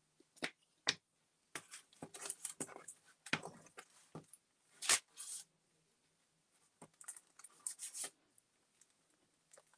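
Paper being handled and a glue stick rubbed across a collage page: short, scattered rustles and scrapes in small clusters, the loudest about five seconds in.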